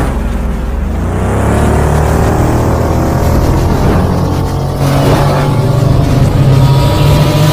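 Sci-fi light-cycle motorcycle engine sound effect revving up, its pitch rising over the first couple of seconds and then holding, over a deep steady hum.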